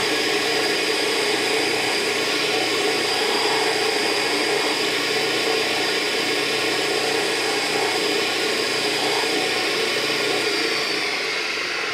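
Baldor bench buffer running steadily, its buffing wheel whirring as a golf iron head is held against it for a quick buff. It is switched off and starts to wind down near the end.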